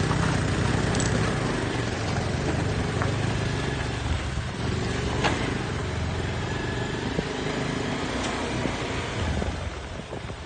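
A small motorbike engine running steadily while riding over a dirt road, with tyre and wind noise, and a single sharp knock about five seconds in.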